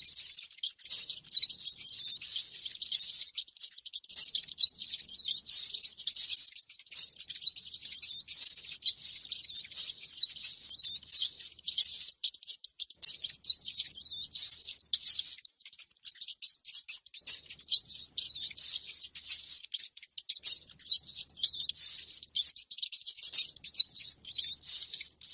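Rats squeaking and chattering: a fast, unbroken stream of high-pitched squeaks and clicks, played as a lure sound for rat traps.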